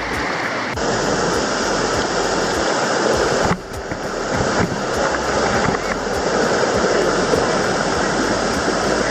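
Hot spring water cascading down small rock steps into a pool, a steady rushing close by that briefly dips about three and a half seconds in.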